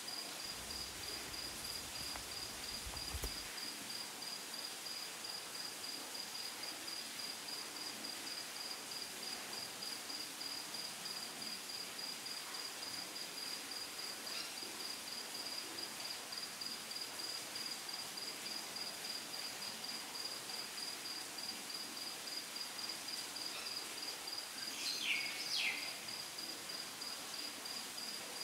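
Crickets chirping steadily in an even, high-pitched pulse. A brief low rumble comes in the first few seconds, and a short, louder squeak with two quick pitch sweeps stands out near the end.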